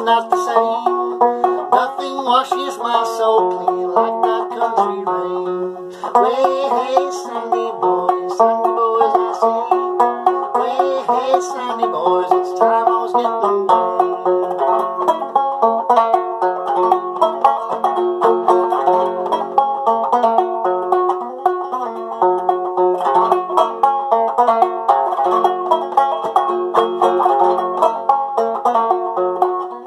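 Solo banjo playing an instrumental passage: a steady stream of quick plucked notes over one note that keeps ringing throughout, with a brief break about six seconds in.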